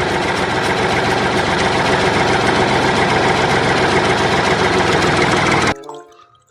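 Tractor engine idling, a loud, steady running sound with a fast, even pulse that cuts off suddenly near the end.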